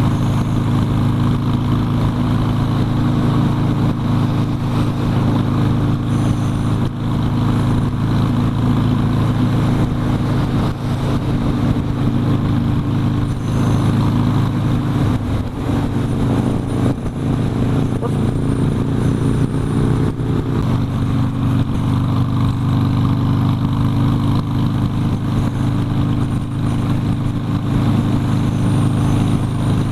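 Harley-Davidson Sportster's V-twin running steadily at cruising speed under way, with a slight change in its note about halfway through.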